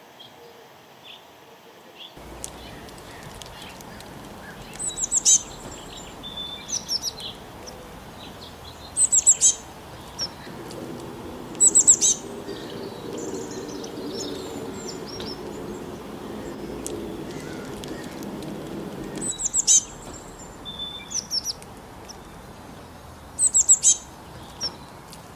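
Small birds chirping in clusters of short, sharp, high-pitched notes, separated by pauses, over steady background noise. A low steady hum comes in about ten seconds in and stops near twenty seconds.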